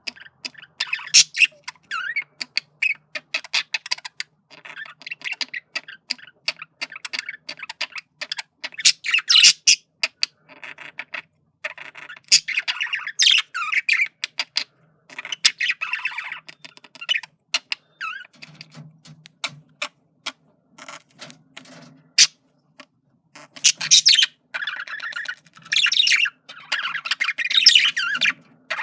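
Male budgerigar's courtship warble: fast, continuous chatter of clicks, chirps and short squawks, louder in several bursts, as he flirts with a hen.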